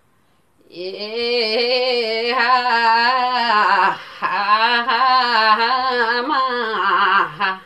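A woman singing a Yakthung Limbu palam melody solo and unaccompanied, holding long notes with a strongly wavering, ornamented pitch. She starts just under a second in and pauses briefly for breath about four seconds in.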